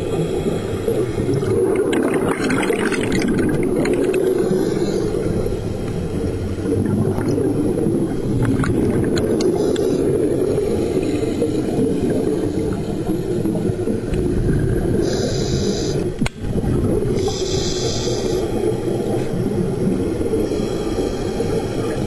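Muffled underwater rumble picked up through a dive camera's housing, with bursts of bubbling from divers' regulators several times. The sound drops out briefly about sixteen seconds in.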